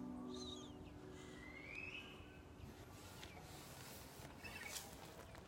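The last guitar chord ringing out and fading within the first second, then faint outdoor quiet with a few scattered bird chirps and a couple of light clicks.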